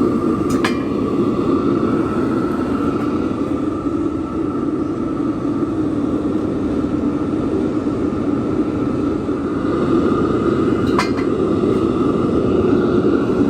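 Electric blower fan forcing air into a charcoal forge fire: a steady rush of air with a steady whine. There are two sharp metallic clinks, about half a second in and again near eleven seconds.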